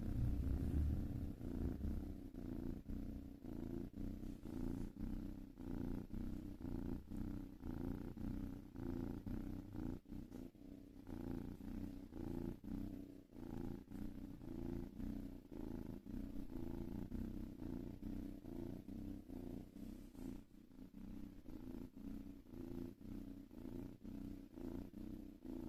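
Domestic cat purring close up: a steady low rumble that swells and fades about once a second with its breathing.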